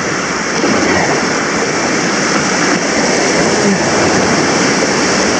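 Steady rush of fast river water over a riffle, heard from an inflatable kayak close to the white water.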